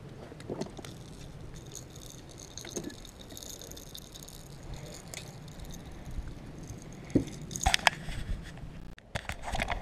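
Handling noises of a caught largemouth bass and its frog lure: scattered light clicks and rattles, with sharper knocks and clatter near the end.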